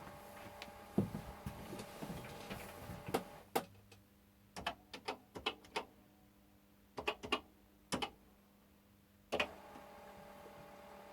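Commodore CBM 8050 floppy disk drive clicking and clunking: clusters of sharp mechanical clicks over a steady hum, which stops a few seconds in and comes back near the end.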